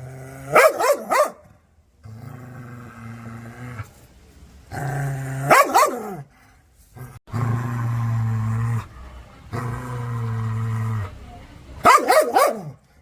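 An angry dog growling in long, low, steady snarls, broken three times by quick bursts of two or three sharp barks: about half a second in, around five and a half seconds, and near the end.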